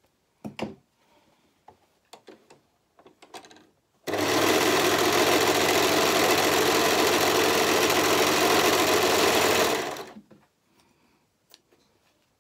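Brother four-thread overlocker (serger) stitching a seam at steady speed for about six seconds, starting abruptly about four seconds in and running down a little after ten seconds. Before it, a few short knocks and rustles as the fabric is lined up under the foot.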